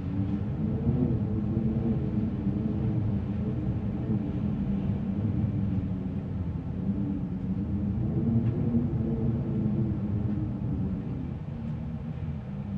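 Spooky attic ambience: low, rumbling wind with a wavering moaning tone that slowly swells and falls away.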